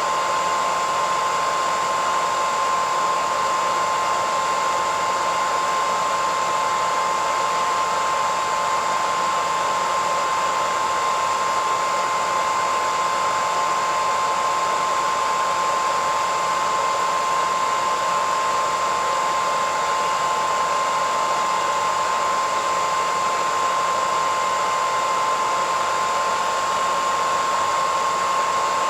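Hairdryer running steadily: a constant rushing airflow with a steady whine from the motor and fan.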